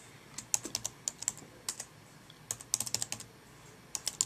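Typing on a computer keyboard: quick runs of keystroke clicks in several short bursts, with brief pauses between them.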